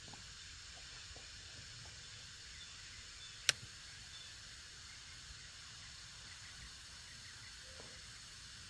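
Faint, steady hiss of outdoor background noise, with a single sharp click about three and a half seconds in.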